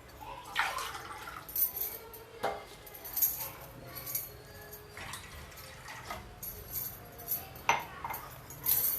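Water being poured into a cooking pot, heard as a series of short, uneven splashes.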